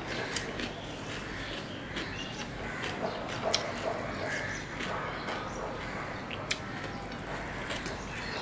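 Mouth sounds of eating mutton biryani by hand: chewing and lip smacks, with fingers mixing rice on a plate, heard as scattered soft clicks and smacks over a steady low hum.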